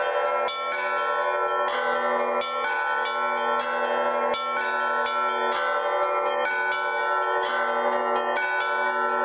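Russian Orthodox church bells rung by one bell ringer in an improvised peal (zvon): many bells struck over and over in a quick, steady rhythm. A deep hum of lower bells runs beneath the ringing of higher bells.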